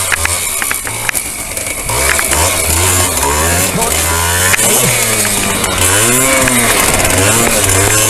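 Small trail motorcycle engines working in low gear up a rocky climb, revving up and easing off again and again so the pitch keeps rising and falling.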